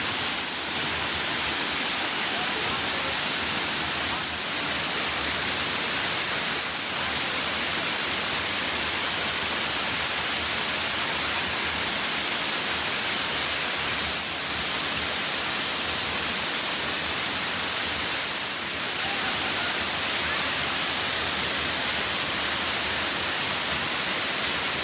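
Waterfall close by: a loud, steady rush of falling water, with a few short dips in level.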